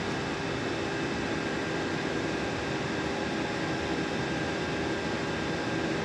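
Steady hum of running machinery: an even hiss with a few held tones, unchanging throughout.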